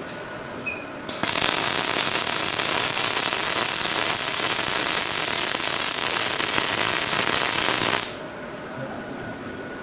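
Robot welding arc running: a loud, steady hiss that starts about a second in, holds for about seven seconds, and cuts off abruptly.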